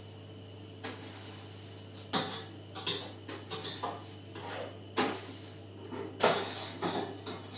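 Irregular clatter and sharp knocks of a long-handled dustpan and brush sweeping up spilled seeds from a hard kitchen floor, the loudest knocks about two, five and six seconds in.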